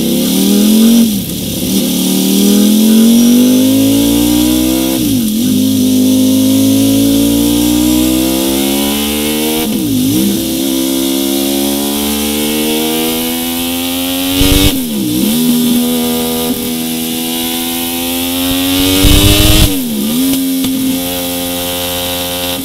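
Ducati Streetfighter V4's 1103 cc Desmosedici Stradale V4 engine revving through Mivv X-M1 slip-on silencers. Its pitch climbs slowly, then dips sharply and recovers about every five seconds. Sharp cracks come with the dips in the later part.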